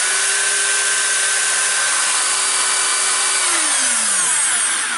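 Makita HR2410 rotary hammer drill's electric motor running free on a test run with newly fitted carbon brushes: a loud, steady whine over a rushing hiss. About three and a half seconds in the trigger is let go and the whine falls as the motor spins down.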